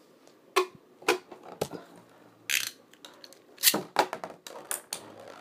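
Spinning Beyblade tops clicking and knocking against the plastic stadium, each other and a small plastic ball. Scattered sharp clicks, with a short rasp about halfway and the loudest knock soon after.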